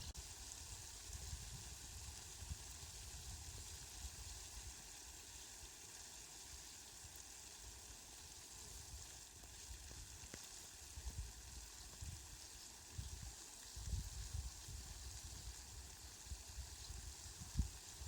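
Rain falling steadily, a soft even hiss, with low rumbles coming and going underneath, strongest in the last third.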